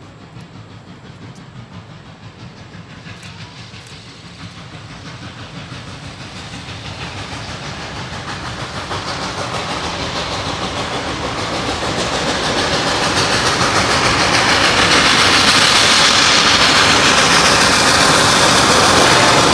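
Reading & Northern No. 425, a 4-6-2 Pacific steam locomotive, approaching under power with its exhaust and steam hiss. The sound grows steadily louder over about fifteen seconds as it nears, then holds loud.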